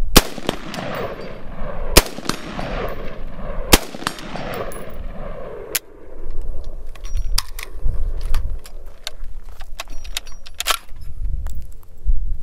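Bushmaster Assault Rifle, a 5.56 mm long-stroke gas-piston carbine, firing four single semi-automatic shots about two seconds apart, each echoing afterwards. The rifle then stops firing: the trigger clicks on a live round that fails to fire, followed by a run of small metallic clicks and rattles as the action is handled, in keeping with the rifle's poor reputation for reliability.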